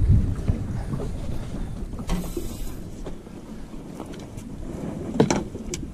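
Wind rumbling on the microphone with scattered knocks and clatter of fishing gear being handled in a small boat. The loudest knock comes about five seconds in.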